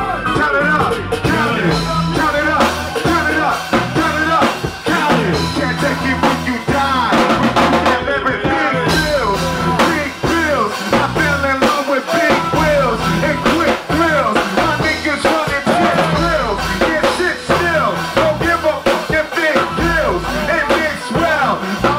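A man's voice performing into a handheld microphone, amplified over loud live music with a drum kit and a steady bass line.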